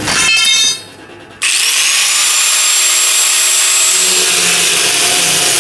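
Angle grinder with a cut-off wheel grinding a hole through the steel wall of a 55-gallon drum. After a short lull it starts suddenly about a second and a half in, a steady high-pitched metal-cutting screech with a thin whistle over it.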